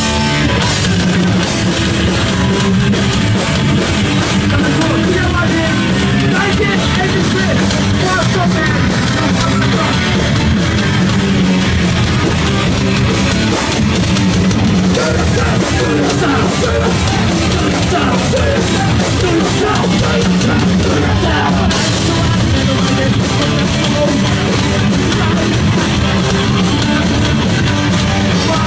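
Punk band playing live at full volume: distorted electric guitar and drum kit, with a singer on the microphone, dense and unbroken throughout.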